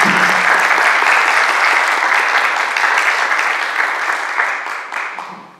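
Audience applause, loud and sustained, fading out near the end.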